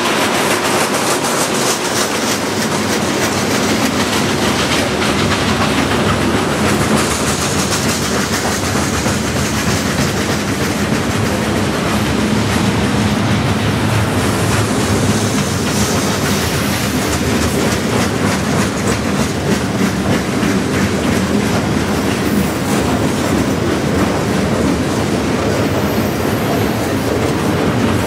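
A freight train of steel covered grain hopper cars rolling steadily past: steel wheels running on the rails make a continuous loud rush laced with many quick clicks.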